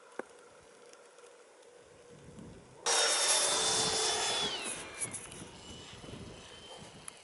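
Faint background for the first few seconds. Then a model aircraft flies past with a high whine over a rushing noise. The whine drops in pitch as the plane goes by and then fades.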